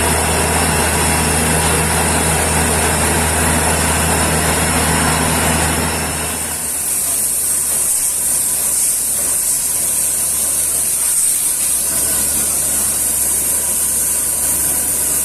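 Truck-mounted borewell drilling rig running loud and steady: a low engine drone under a broad noise. About six and a half seconds in, the low drone drops away and a high hissing grows stronger.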